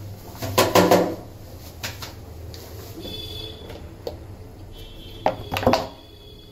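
Kitchen handling noise: a plastic oil bottle and an iron kadhai knocking and clicking as oil is poured into the pan and the bottle is capped and set aside. The loudest knocks come about a second in and again near the end, over a steady low hum.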